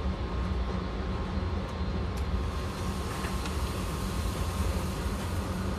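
Steady low mechanical rumble of shooting-range machinery, with a faint steady hum and no gunshots.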